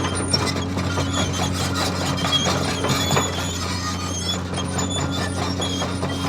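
Radio-controlled toy bulldozer running: a steady hum from its drive motor and gearbox, with short high-pitched squeaks and squeals coming again and again throughout.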